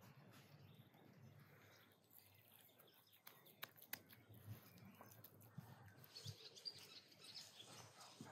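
Near silence: faint outdoor quiet with small birds chirping, most noticeably near the end, and a couple of faint clicks a little past the middle.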